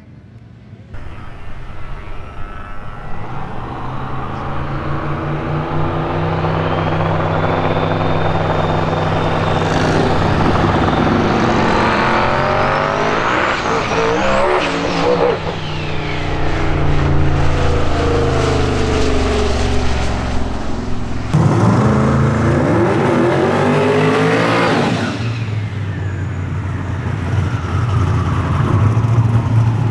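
Twin-turbo V8 of an outlaw radial drag-racing Mustang at full throttle, its pitch rising and falling through gear changes as it passes. About twenty-one seconds in the engine revs up sharply again, holds high for a few seconds and drops back, as the car does a smoky burnout.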